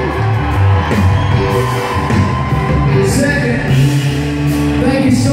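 Live country band playing loud, with guitars and drums behind a man singing.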